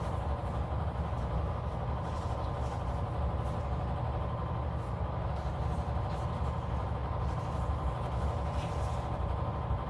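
A steady low mechanical hum and rumble that does not change, with a few faint light clicks and rustles from stickers and paper being handled.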